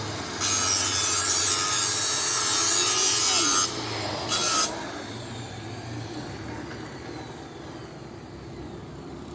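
A power tool grinding or cutting, a steady harsh rasping noise that stops a little under four seconds in, with one short burst after it. Then quieter workshop background with a faint falling whine.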